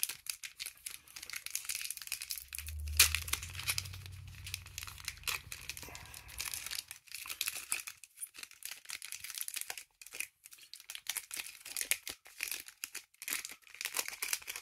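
Foil booster-pack wrapper crinkling and tearing as it is opened by hand, in many irregular crackles with a sharp one about three seconds in.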